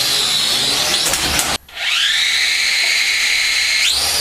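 Small toy quadcopter's motors and propellers whining at high pitch. They cut out briefly about a second and a half in, spin back up, and rise in pitch again near the end, as the drone struggles to fly with its camera fitted.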